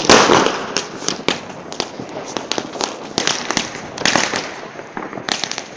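New Year's Eve fireworks and firecrackers going off all around: many irregular sharp bangs and cracks, with a dense burst of crackling right at the start as the loudest moment.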